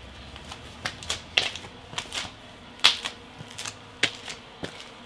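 Irregular sharp clicks and light taps, about a dozen over five seconds, the loudest near the middle, from handling the air pump's hose connector at the car tire's valve.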